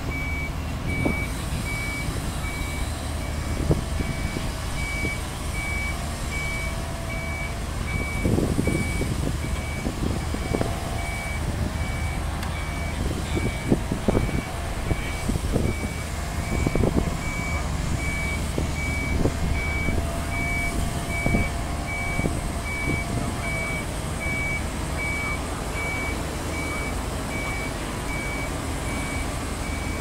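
Backup alarm on heavy equipment beeping steadily at about one beep a second over a diesel engine running, with scattered knocks.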